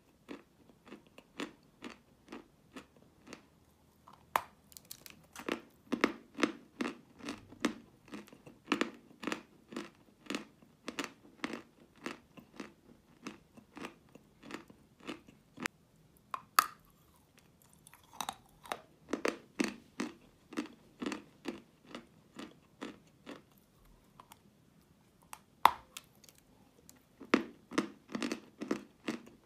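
Close-up chewing of a mouthful of wet white chalk: a steady run of soft crunches, about three a second, with a few sharper, louder crunches and short pauses in between.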